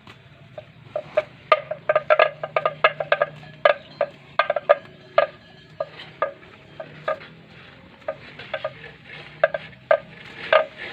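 A cow munching grass: irregular crunching and tearing, several bites and chews a second, over a faint low hum.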